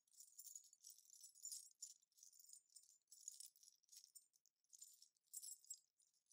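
A small cluster of little metal bells moved gently in the hands, jingling faintly and high in short, irregular shakes.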